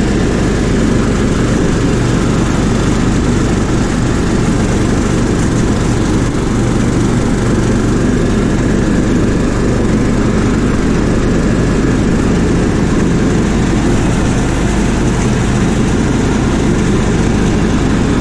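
Riding lawn mower engine running steadily at mowing speed with the blades engaged, cutting grass.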